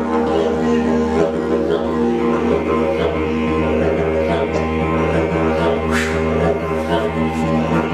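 Didgeridoo playing a continuous low drone with shifting overtones, with a brief rising note about six seconds in.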